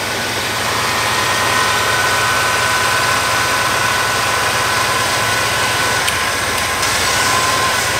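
Small-block Chevy V8 idling steadily, with a steady high whistle over the engine noise from about a second in.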